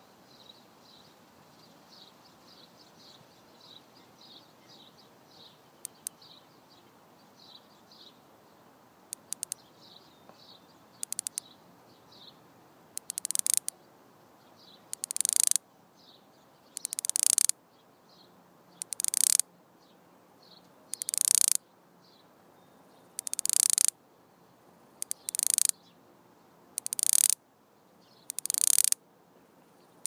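Cicada calling: a few scattered clicks, then loud, high buzzing bursts of about a second each, repeating roughly every two seconds from about halfway through. Faint high chirping sounds in the first part.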